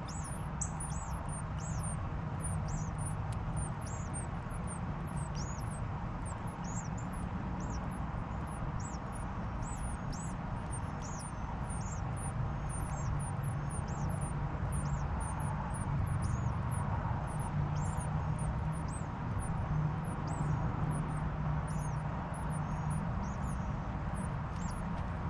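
Northern cardinals at the nest calling: short, thin, high chips repeated about twice a second, over a steady low hum.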